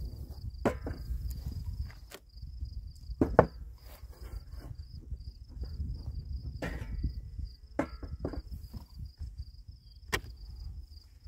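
A cricket trilling steadily at a high pitch. Over it come several sharp knocks and clacks, the loudest about three seconds in, as a metal bee smoker and a wooden hive with a metal lid are handled.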